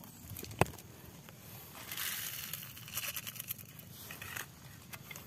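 Granular fertilizer poured from a plastic container into a hole in the soil: a hiss and patter of granules about two seconds in, followed by scattered small ticks and crackles. A single sharp tap comes just before it, near the start.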